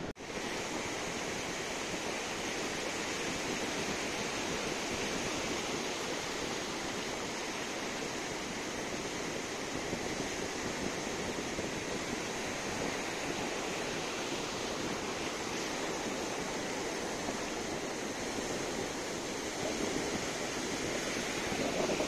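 Ocean surf washing up a sandy beach: a steady rushing hiss of breaking waves and foam.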